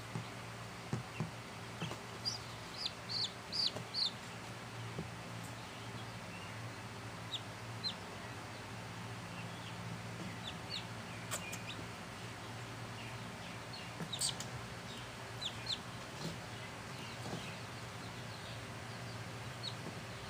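Young chicks peeping: short, high-pitched peeps, a quick run of them a couple of seconds in, then scattered single peeps, over a steady low hum.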